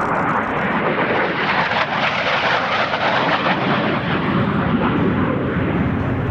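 AV-8B Harrier's Rolls-Royce Pegasus turbofan during a low right-to-left pass: a loud jet rush that builds over the first couple of seconds, is strongest in the middle, and eases off near the end.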